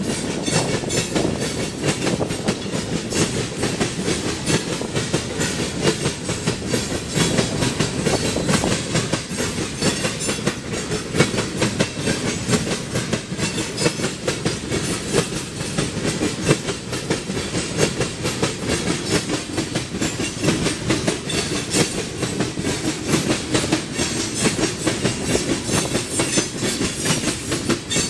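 Freight train of tank cars rolling past, its wheels clicking and clacking steadily over the rails above a continuous low rumble.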